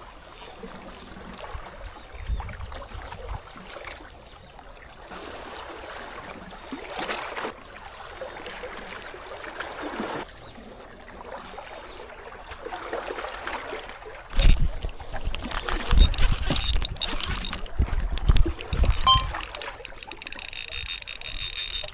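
Water sloshing and trickling, with irregular low rumbling surges in the last third.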